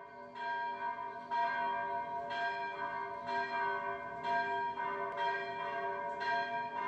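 Church bells ringing, with a fresh stroke about once a second and each stroke ringing on under the next.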